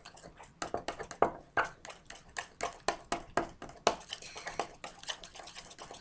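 A table knife stirring thick brownie batter in a ceramic mug, its blade clicking and scraping irregularly against the mug's sides several times a second.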